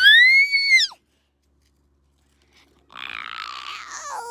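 A child's high-pitched shriek, rising then falling, lasting under a second. After a gap of silence, a rough, raspy growl-like voice starts about three seconds in.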